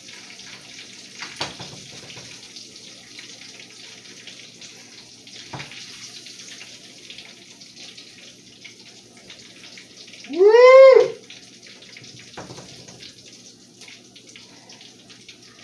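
Chicken livers sizzling steadily in hot oil in a frying pan, with a few sharp clicks of metal tongs as pieces are lifted out. About ten seconds in comes one short, loud voice-like call that rises and falls in pitch.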